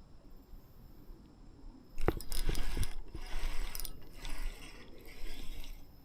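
Fishing reel being cranked, its gears and ratchet clicking in short spells of reeling that start suddenly with a sharp click about two seconds in.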